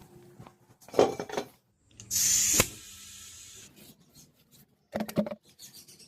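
Tubeless tyre puncture repair: tools knocking and being handled, with a loud hiss about two seconds in that lasts about half a second and ends in a sharp click, then a fainter hiss for about a second.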